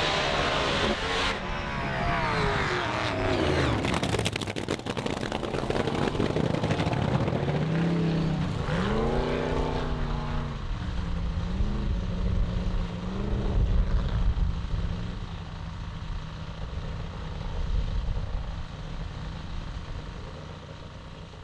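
Supercharged nitro-burning fuel altered drag cars launching and running down the strip, engines loud with gliding pitch, and a rapid run of sharp cracks about four seconds in. Engine revs rise and fall around the middle, then the sound fades with distance.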